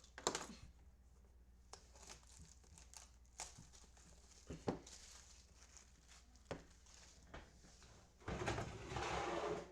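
Handling and opening a sealed trading card hobby box: scattered light taps and clicks of cardboard, then about eight seconds in a louder stretch of plastic wrapper crinkling and tearing.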